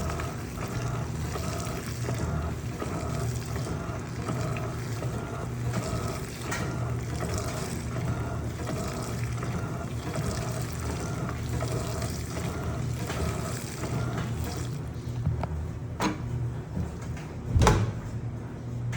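Electrolux LPE16 washing machine running a wash with a comforter in water: a steady motor hum with an even, rhythmic pulsing and the sound of water moving. Near the end the rhythm stops, then comes a click and a louder thump.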